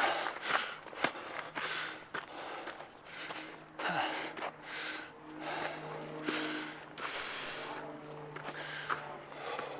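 A person breathing heavily, panting in and out about once a second, out of breath from the exertion of hiking and climbing.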